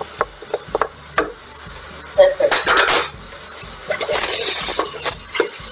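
A china plate knocks a few times against a stainless steel pot as its contents are tipped in. Then a wooden spoon stirs the frying mince in the pot, with a loud burst of stirring noise about two seconds in.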